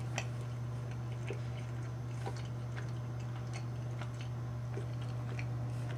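A person chewing a small taste of cooked matzah ball: soft, irregular mouth clicks over a steady low hum.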